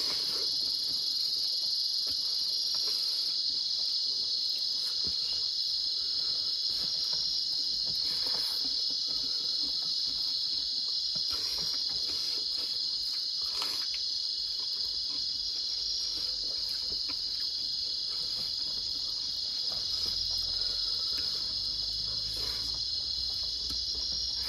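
Insects chirring in a steady, high, unbroken drone, with faint soft clicks of hand-eating now and then.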